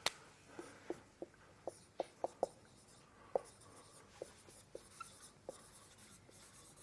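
Dry-erase marker writing on a whiteboard: faint, irregular taps and short squeaks as the strokes are drawn.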